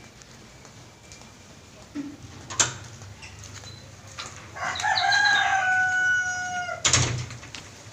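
A rooster crows once: a call of about two seconds that climbs in steps and ends on a long, slightly falling note. A sharp click comes about two and a half seconds in, around when the wooden door swings open, and a louder knock comes near the end.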